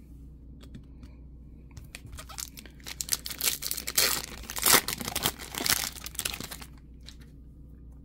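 A Topps Chrome foil trading-card pack torn open by hand: a run of crinkling tears starting about two seconds in, loudest in the middle, dying away near the end.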